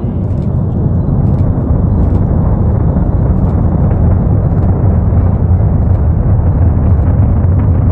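SpaceX Falcon 9 rocket's nine Merlin engines heard after launch: a loud, deep rumble with crackling, swelling over the first moment and then holding steady.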